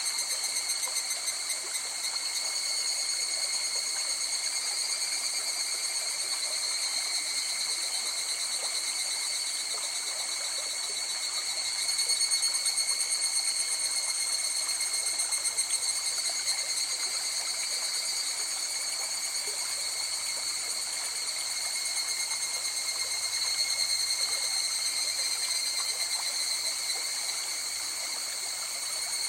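River water flowing in a steady rush, under a continuous high-pitched trilling chorus of calling night creatures.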